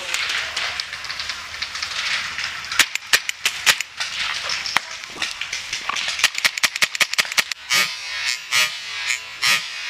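Paintball markers firing: a rapid, uneven string of sharp pops that starts about three seconds in and comes thickest in the second half.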